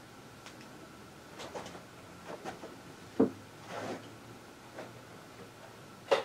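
A few sharp knocks and clicks of hard objects being handled: two loud knocks, one about three seconds in and one near the end, with softer clicks and a brief rustle between.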